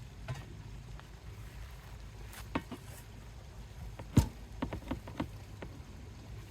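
A few sharp knocks and clicks over a low steady rumble: one click about two and a half seconds in, a louder knock about four seconds in, then a quick run of four or five lighter clicks.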